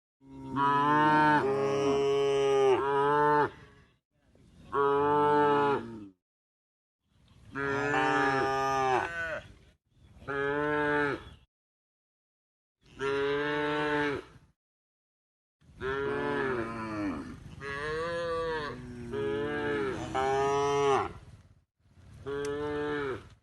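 Cattle mooing: a string of about seven long, drawn-out moos, each cut cleanly off into dead silence before the next.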